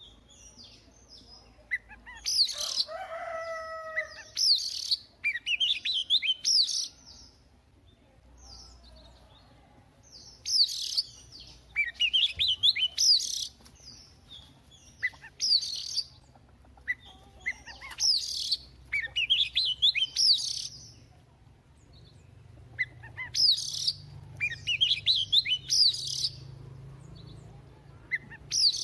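White-rumped shama singing in repeated bursts of varied phrases: sharp high notes and quick trills, with a few lower, fuller whistles about three seconds in. There are short pauses between phrases.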